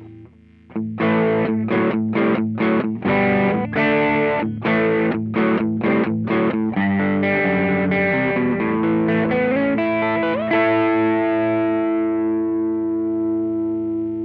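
Electric guitar overdriven through an Ibanez Tube Screamer pedal, playing a riff of short, choppy chord stabs, then ringing notes that slide up into a held chord, which slowly fades.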